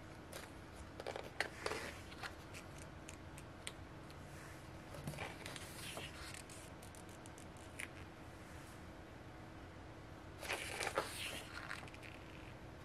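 Pages of a photo book being handled and turned: soft paper rustles and small ticks, with a louder rustle of a page turn about ten and a half seconds in.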